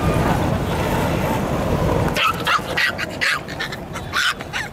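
A Yorkshire terrier barking in a quick run of short yaps, about three a second, starting about two seconds in. Before the barking there is a steady rushing background noise.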